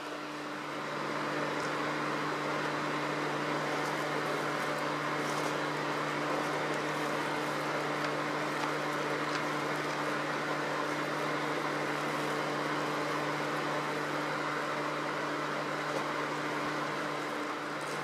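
Small electric fan running steadily: a low motor hum with rushing air, a little louder from about a second in.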